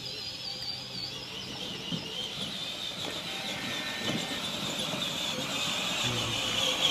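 Battery-powered Power Wheels Rhino ride-on toy driving on grass: its electric motors and gearboxes make a steady high, slightly wavering whine that grows louder as it comes closer.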